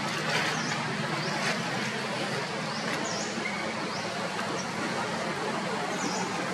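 Steady outdoor background noise with a few short, high chirps scattered through it, about one every second or so.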